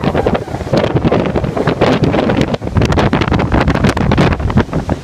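Hurricane wind hitting a phone's microphone in loud, gusty buffets with rapid irregular thumps throughout.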